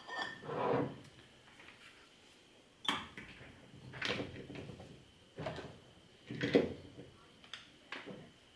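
Red two-handled wing capper crimping crown caps onto amber glass beer bottles: irregular clacks and clinks of the metal capper and the glass bottles as it is set on a bottle, the levers are pressed down and bottles are moved on the table.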